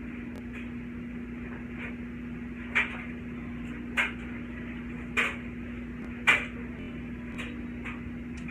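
Four sharp knocks about a second apart, over a steady low hum.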